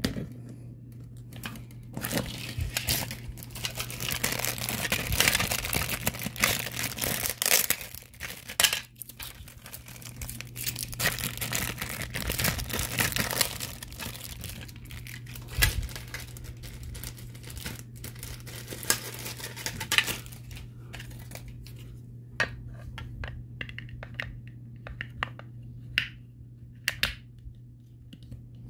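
Plastic packaging crinkling and rustling as it is unwrapped, in long bursts over the first half. Then light clicks and taps of small plastic parts being handled on a table.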